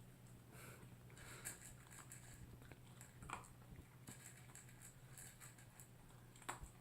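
A dog eating its breakfast, heard faintly: a few scattered crisp crunches and clicks over a low steady hum.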